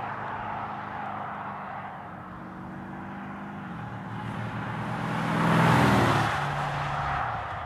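Mercedes-Benz E63 AMG's 5.5-litre biturbo V8 running through an aftermarket performance exhaust as the car drives by. The exhaust note steps down in pitch a little past halfway, swells to its loudest about six seconds in as the car passes, then drops lower and fades.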